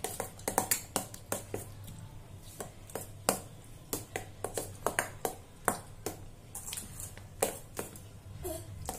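A metal spoon stirring a thick whipped-cream mixture in a glass bowl, clinking against the glass in irregular sharp taps, a few a second.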